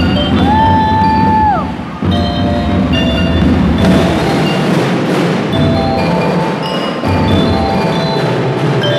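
A school drum and lyre band playing: bell lyres ring out short, bright melody notes over a steady drum beat, and the drums drop out for a moment now and then. Near the start a single held whistle-like tone sounds for about a second and a half, sliding in and out of pitch.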